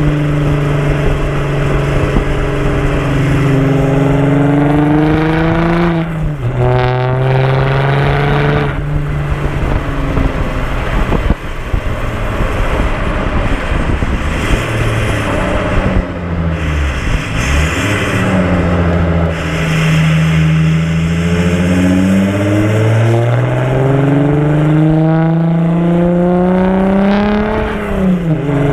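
Audi A5 3.0 TDI's V6 diesel engine running through open exhaust pipes while driving, its note falling and rising with throttle and gear changes. The pitch drops sharply and climbs again about six seconds in, turns rougher and noisier through the middle, then rises steadily under acceleration before dipping again near the end.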